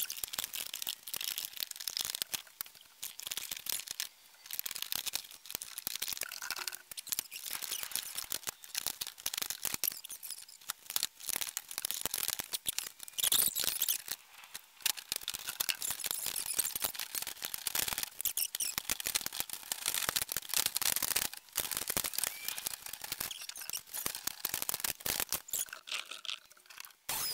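Thin aluminum siding being cut by hand along a marked line: a long run of irregular sharp clicks and crunches of metal, with some squeaks.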